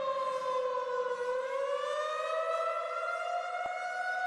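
Whelen WPS-2908 electronic warning siren sounding one tone. The tone dips slightly in pitch, starts to rise about a second in, and then holds steady at a higher pitch.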